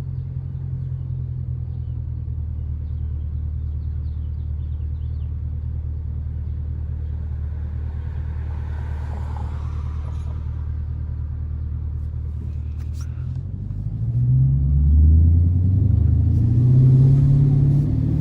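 Dodge R/T's V8 engine heard from the moving car, running at a steady low drone while cruising. About 14 seconds in it gets clearly louder and its pitch climbs and wavers as the car accelerates.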